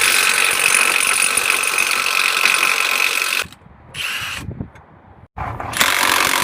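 Handheld power tool running in long steady bursts with a high whine, stopping briefly about three seconds in and starting again near the end.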